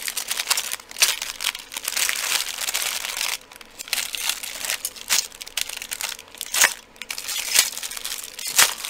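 Clear plastic packaging bags crinkling and crackling as they are handled and turned over, with sharp crackles scattered throughout.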